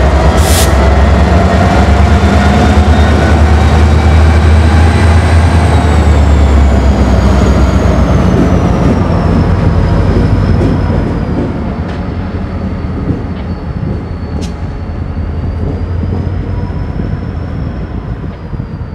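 Diesel locomotives running light past at close range and moving away: a deep engine drone with a high whine that slowly falls in pitch, fading after about ten seconds. A sharp click sounds just after the start.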